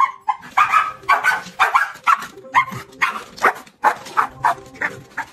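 Dog yipping and barking in quick short bursts, about three a second, excited at the offer of a swim.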